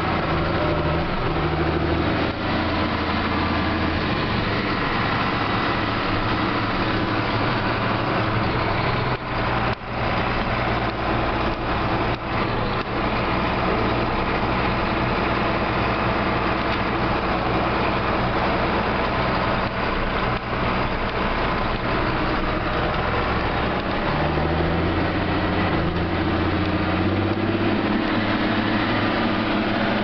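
Combine harvester running, heard from inside its cab: a steady engine drone with the hum of the threshing machinery. The engine note shifts about two seconds in and again near the end.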